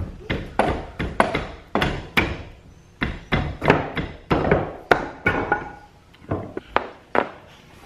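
Hammer blows knocking the threaded rod out of the wooden leg of an antique apple cider press: an uneven run of about twenty sharp strikes, two to three a second, with a couple of short pauses.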